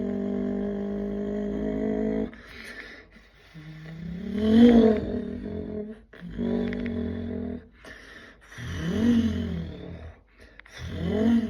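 Subaru WRX STI's 2.5-litre EJ257 single-turbo flat-four boxer engine running steadily, then about two seconds in dropping back and being revved in three blips, its pitch rising and falling each time, the first blip the loudest.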